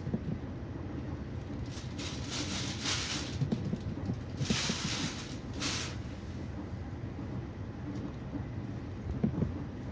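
ÖBB Railjet passenger train heard from inside the coach at speed: a steady low rumble of wheels on the track, with two stretches of louder rushing hiss, one about two seconds in and one about four and a half seconds in.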